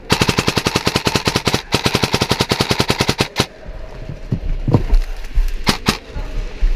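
Airsoft gun firing on full auto: a long rapid burst with a brief break partway, stopping about three and a half seconds in, followed by a few scattered shots and thumps.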